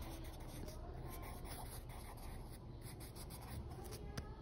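Wooden graphite pencil writing on paper: faint, continuous scratching of the pencil lead as a word is written.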